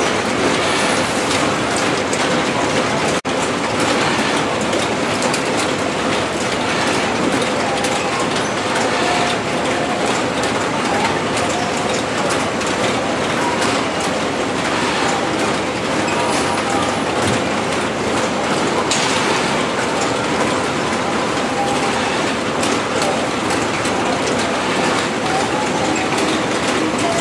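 Cut-flower stem conveyor machine running steadily, with a continuous mechanical clatter of many small clicks and rattles.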